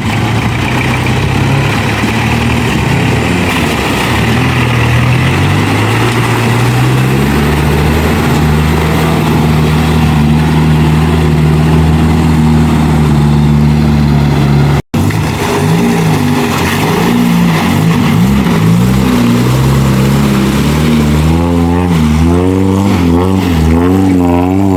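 Off-road 4x4 engine working under load: its pitch climbs and then holds steady for several seconds. After a cut it is revved up and down again and again near the end.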